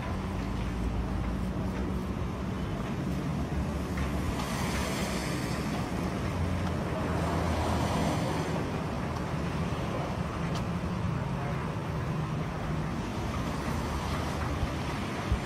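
Street traffic noise on a wet road: a low engine hum runs steadily under a noisy hiss that swells about four seconds in and fades by about six. A short sharp knock comes just before the end.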